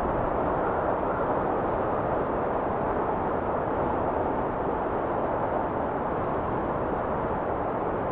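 Steady rushing wind with no gusts or breaks, its sound full in the middle and thin in the highs.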